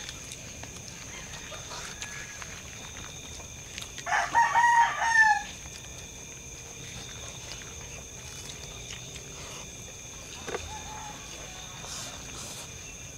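A rooster crowing once, about four seconds in, lasting about a second and a half and falling in pitch at the end.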